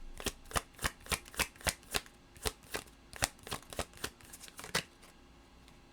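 A deck of tarot cards being shuffled by hand: a run of sharp card snaps, about three or four a second, that stops about five seconds in.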